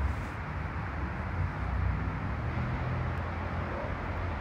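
A homemade firecracker's black-powder fuse burning down with a steady hiss, over a steady low outdoor rumble.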